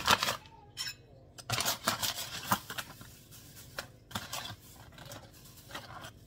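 Plastic bags crinkling and rustling as they are handled, in irregular short bursts with brief quiet gaps between.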